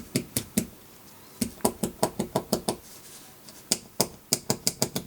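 Small plastic switch on a Sony SRF-59 radio being clicked back and forth to work contact cleaner into it: quick, sharp clicks in several irregular runs.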